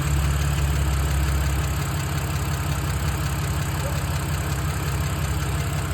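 2007 BMW 328i's N52 straight-six idling with a steady, fast, even ticking that the owner can't place between the N52's well-known lifter tick and early rod knock.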